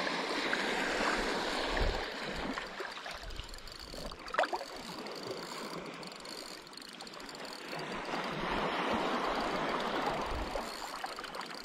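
Small sea waves lapping and washing at the shoreline as an even hiss, swelling near the start and again later on.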